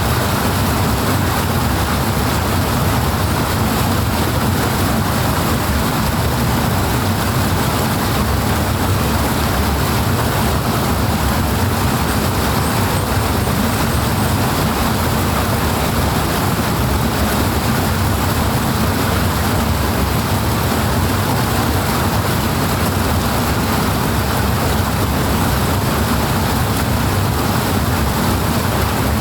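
Loud, steady rush of flowing water, an even unbroken roar with a heavy low end.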